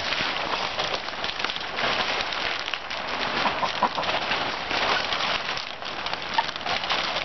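Loose polytunnel polythene sheeting rustling and crackling as it is pulled and shifts, a dense, continuous crinkle of plastic.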